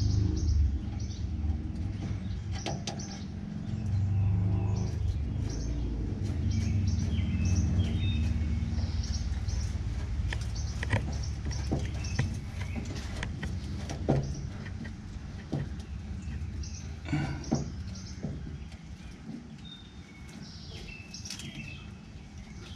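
Birds chirping over and over in the background, with scattered sharp clicks and knocks from hands working a fuel line fitting under the truck; a low rumble fills the first half and fades later.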